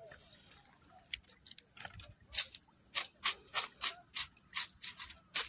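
Rhythmic scraping strokes, about three a second, starting about two seconds in.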